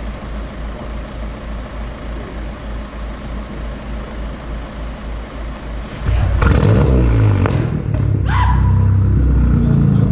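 VW Golf R's turbocharged 2.0-litre four-cylinder through a custom straight-pipe exhaust with no cats or resonators: a low, pulsing rumble, then about six seconds in it turns much louder, its pitch rising and falling before it settles into a loud steady drone.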